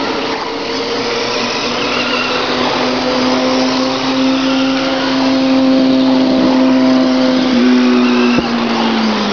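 Radio-controlled race trucks whining as they lap a dirt oval, with several higher motor pitches rising and falling as trucks pass. Underneath runs a steady hum that drops slightly in pitch near the end.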